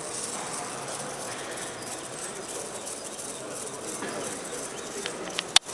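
Steady background hiss in a large sports hall, with three sharp clicks near the end, the last one the loudest.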